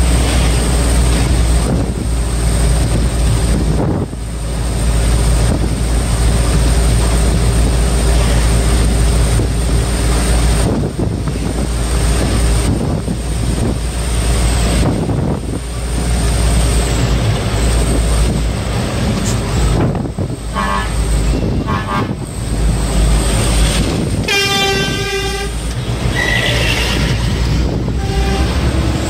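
Steady engine and road noise inside the cab of a moving truck. In the last third a horn sounds: two short toots, then a longer blast of about a second, and another brief toot near the end.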